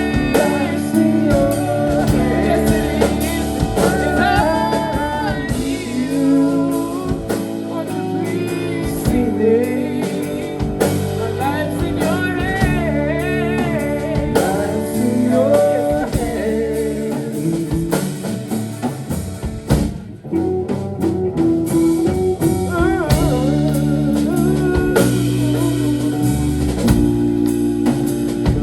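Live rock band playing a blues-tinged rock song: electric guitar lines over bass and drum kit, with a short dip in the playing about twenty seconds in.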